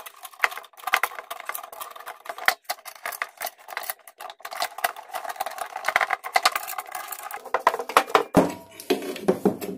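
Brass union nuts being screwed by hand onto brass fittings of a copper-pipe assembly, with light metallic clicking and rattling as the parts are turned and handled.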